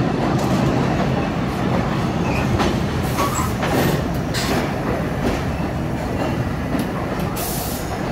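R62A New York City subway train running, a steady rumble with irregular clicks and clatter of its wheels over the rail joints.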